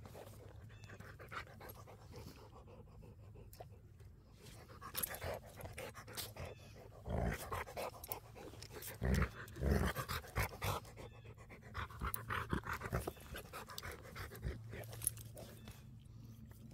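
A dog panting close to the microphone, with a few low thumps partway through.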